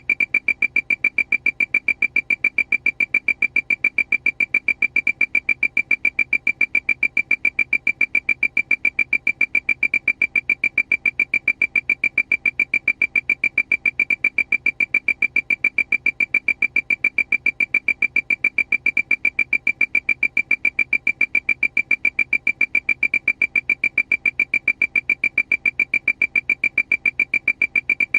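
Aircraft warning alarm: a high electronic beep repeating rapidly and evenly, several times a second, without change.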